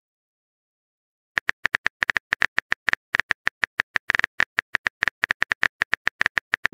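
Keyboard typing sound effect: a quick, even run of short clicks, about eight a second, one per letter typed into a chat message box, starting about a second and a half in.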